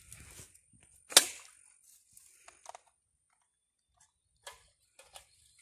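Fishing slingshot (estilingue de pesca) shot: one sharp snap about a second in as the stretched band releases and the line-tethered arrow flies out, followed by a faint high whine for a few seconds and a few small clicks.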